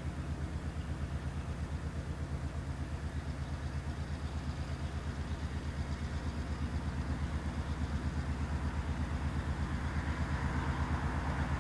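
Diesel locomotive engine running with a steady low throb, growing gradually louder as the train approaches slowly.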